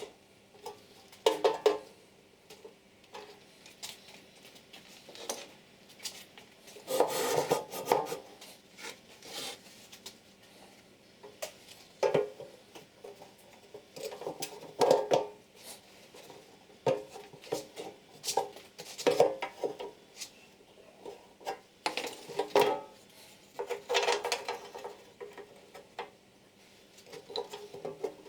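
Irregular clinks, knocks and scrapes of small hard objects being handled and set down on a workbench, coming in short bursts every second or two.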